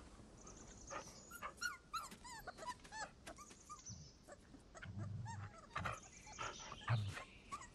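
Wolf pups whimpering and squeaking from inside the den: many short, high, rising-and-falling squeaks, thickest in the first few seconds. Two short low sounds come about five seconds in and again near the end.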